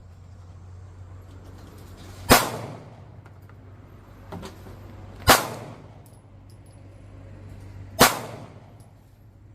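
Three single handgun shots fired slowly, about three seconds apart, with a faint knock between the first two.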